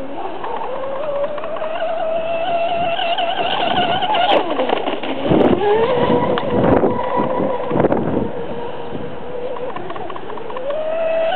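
Electric RC speedboat on a 3S LiPo, driving a 36 mm brass propeller, running at speed with a loud whine. The pitch climbs in the first second and holds, drops to a lower whine with rough, choppy noise about halfway through, then dips and climbs again near the end.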